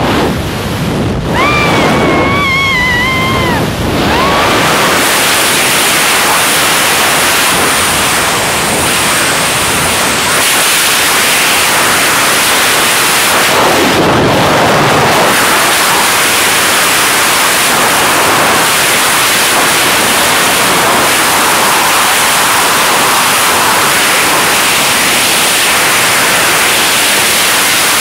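Loud, steady wind noise blasting the microphone during a tandem skydive freefall. About a second in, a woman gives a long, high, wavering scream that lasts a couple of seconds.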